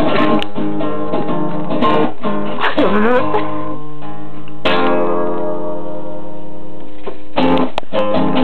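Acoustic guitar strummed hard and loosely: a run of rough strums, then a chord struck about halfway that rings out for a couple of seconds, then more strumming near the end.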